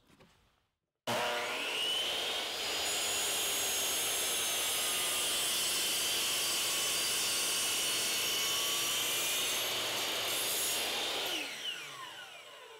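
Power miter saw starting up about a second in with a rising whine, running steadily as its blade cuts a 45-degree miter through 2x4 molding, then winding down near the end.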